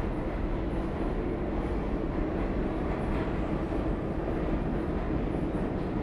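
New York City subway train running, a steady rumble with a constant low drone through it.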